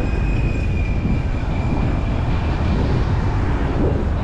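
Steady low rumble of a car driving on city streets: engine and tyre noise with some wind. A faint thin high tone fades out about three seconds in.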